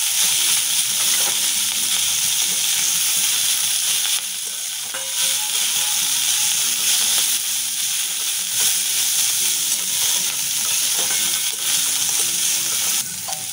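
Chopped vegetables sizzling in hot oil in a steel wok, being stirred and tossed with a metal spatula: they are being lightly fried.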